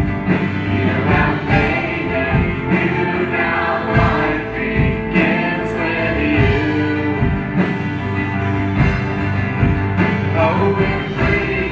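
Live contemporary worship band playing, with drums, bass, guitars and keys under voices singing. The drums keep a steady beat.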